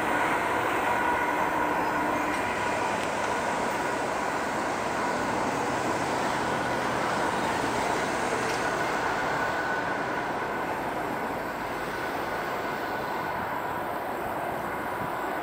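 CSX freight train led by GE ES44AH and ET44AH diesel locomotives passing at speed: locomotive engines running and wheels rolling over the rails in a steady rush, easing off somewhat in the second half.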